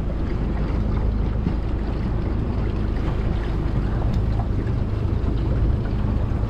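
Small motorboat under way, its motor a steady low rumble, with wind buffeting the microphone and water moving past the hull.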